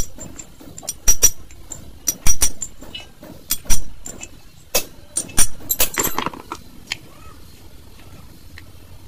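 Sharp metallic clinks and taps of steel parts and tools being handled on a Rane truck power steering gearbox during reassembly, about a dozen in the first six seconds, then only low background.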